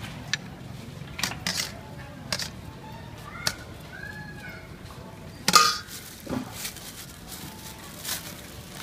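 Metal ladle knocking and scraping against a large stainless steel bowl while serving a noodle dish, with a handful of sharp clinks. The loudest clatter comes about five and a half seconds in.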